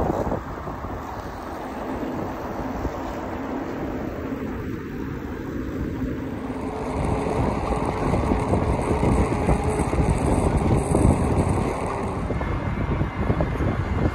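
Wind buffeting the microphone of a camera carried on a moving bicycle, a dense, uneven rumble mixed with road noise from riding on asphalt; it gets louder about halfway through.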